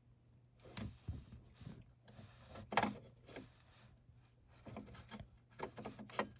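Fingers and a wire pin terminal rubbing and scraping against a plastic multi-pin connector as the terminal is pushed into its cavity, with a scatter of faint scrapes and small clicks, the loudest a little under three seconds in.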